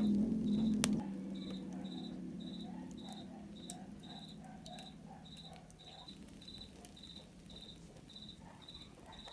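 A cricket chirping steadily, about two chirps a second, over a wood fire's embers giving occasional sharp crackles and pops. A low hum is loudest in the first second and then fades.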